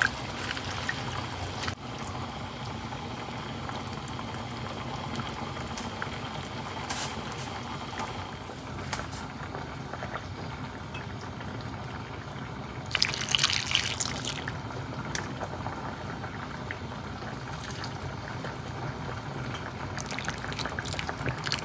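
Pot of bulalo beef-bone soup bubbling steadily as it cooks. About 13 seconds in there is a brief, louder burst of splashing liquid.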